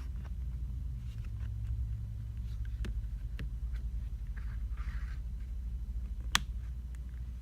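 Small plastic clicks and a short scrape as a smartphone's plastic back housing is pried loose from the frame, with one sharp snap near the end, over a steady low hum.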